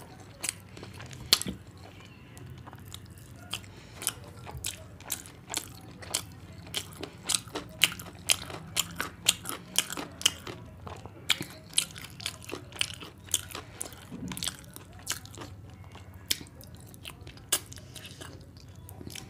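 Close-miked mouth sounds of a person biting and chewing chicken curry with rice: many sharp, irregular clicks, several a second, thickest around the middle.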